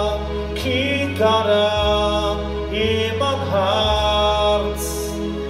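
A man singing a slow, emotional Yiddish song in a drawn-out, wavering chant, drawing out the same word twice, over instrumental accompaniment with held bass notes that change every second or so.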